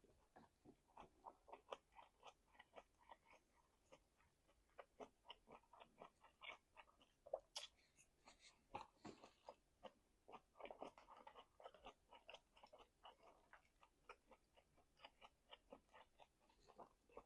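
Faint, close-miked chewing of meat: a steady run of short wet mouth smacks and clicks, two or three a second, pausing briefly now and then.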